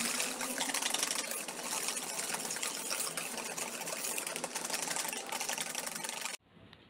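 Wire whisk beating a batter of creamed butter, sugar and eggs in a stainless steel bowl: a fast, steady run of scraping and tapping strokes against the metal. It stops abruptly near the end.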